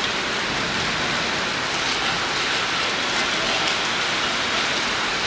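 Heavy rain falling steadily, a dense even hiss of rain on surfaces.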